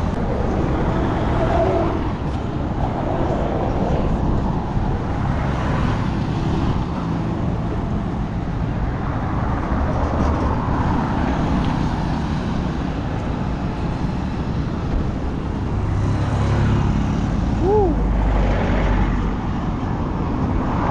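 Road traffic running steadily along a busy road, with a heavier vehicle rumbling past near the end. A short high chirp that rises and falls comes just before that.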